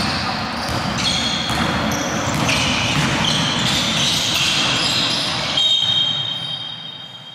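Basketball game in a sports hall: a ball bouncing on a hardwood court and sneakers squeaking in short high chirps as players run. Near the end a high steady tone sounds for over a second.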